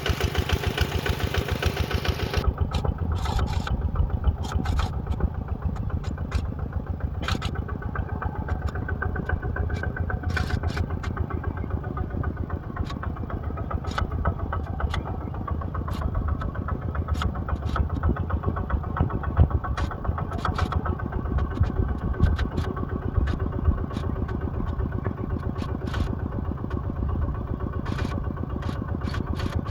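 Heavy machine's engine running steadily with an even, rapid firing beat, with scattered sharp clicks and knocks.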